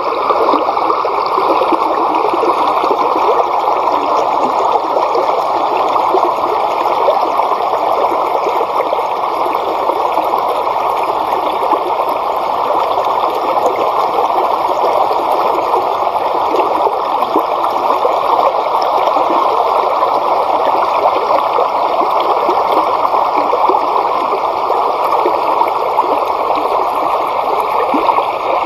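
Steady rush of flowing water, like a stream running over rocks, with no change throughout.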